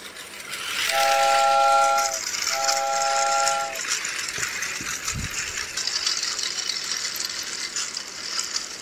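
Battery-operated toy steam train running on its plastic track: a recorded steam-whistle effect sounds twice, each about a second long, over the steady high whir and rattle of the small motor and wheels.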